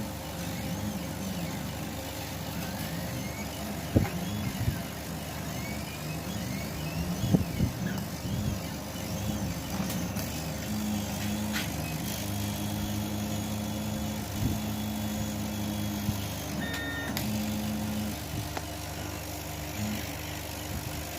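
Homemade CO2 laser cutter at work. Its motion motors hum and whine at shifting pitches, starting and stopping in short stretches as the head moves, over a steady machine hum. There are a couple of sharp clicks.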